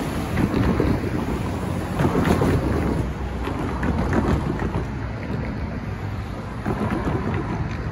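Cars driving past over the light rail crossing as road traffic resumes after a train has cleared, a steady low rumble of tyres and engines with wind buffeting the microphone.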